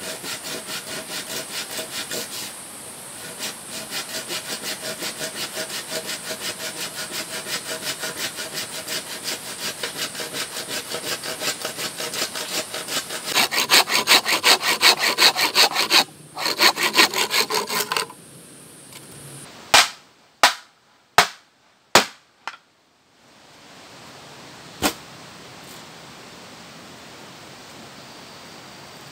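Folding hand saw cutting through a bamboo pole in a steady rhythm of back-and-forth strokes, loudest near the end of the cut. It is followed by four sharp knocks in quick succession and one more a few seconds later.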